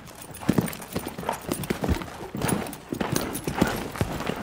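Hoofbeats of a young stallion moving about with a saddle on his back for the first time: a run of quick, uneven footfalls, about three a second.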